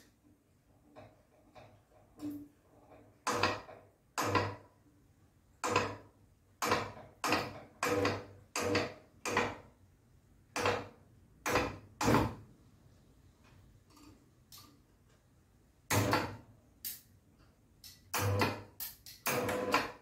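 Limit-switch adjusting screw on a GDO Roll 55 roller door motor being turned with a screwdriver, clicking with each step of the turn. The clicks come irregularly, about one every half second to a second, with a pause of a few seconds in the middle.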